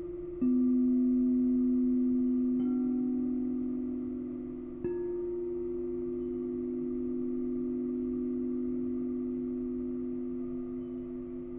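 Crystal singing bowls struck with a mallet three times, each strike starting a new pure ringing tone a little higher than the one before, the tones sustaining and overlapping into a steady hum.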